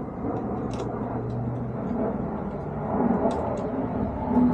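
Steady low mechanical hum with a few faint, sharp clicks as a Torx driver works the T25 screws holding a Can-Am Spyder body panel.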